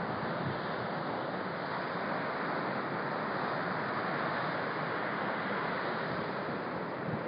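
Ocean surf breaking on a beach, heard as a steady rushing noise, mixed with a stiff wind buffeting the phone's microphone.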